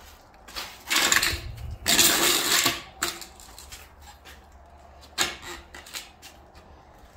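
Handling noise from a handheld camera being moved about: two loud rustling bursts in the first three seconds, then scattered clicks and knocks.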